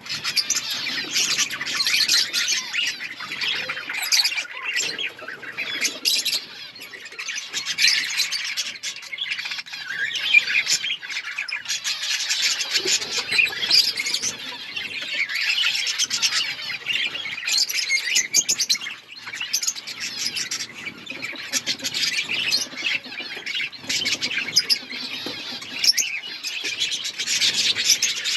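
A flock of budgerigars (budgies) chattering and chirping together, with dense, overlapping warbles and squawks and brief wing flutters.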